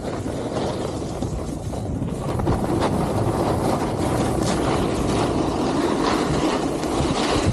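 Snowboard sliding and carving on groomed snow: a steady rumbling scrape of the base and edges on the snow, with brief sharper scrapes as the edge bites in the turns.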